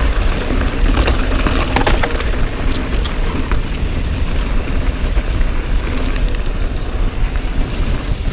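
Mountain bike riding down a dirt trail: wind buffeting the microphone and tyres rolling over the ground, with scattered clicks and rattles from the bike, a quick run of sharp ticks about six seconds in.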